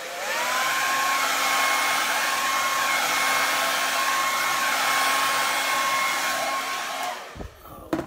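Handheld hair dryer running on full blow: a steady rush of air with a whine that rises as the motor spins up, switched off about seven seconds in, followed by a low thump.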